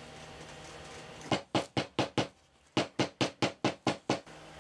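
A quick run of short, sharp knocks starting over a second in: five in about a second, a brief pause, then seven more at about five a second.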